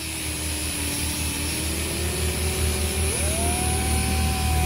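Cordless drill running forward on a hole saw's mandrel pilot bit, boring the pilot hole into a PVC downspout. The motor runs slow and low at first, then about three seconds in its pitch jumps up sharply as it speeds up, with a low rumble underneath.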